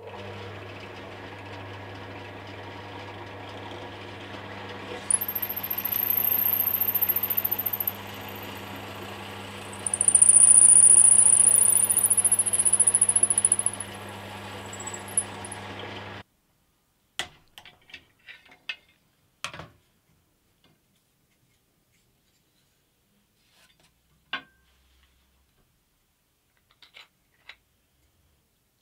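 Benchtop pillar drill's motor running steadily, with two louder passes of the bit cutting into an oak workpiece that add a high-pitched squeal. The drill stops abruptly about two-thirds of the way in, followed by a few scattered clicks and knocks as the workpiece is handled.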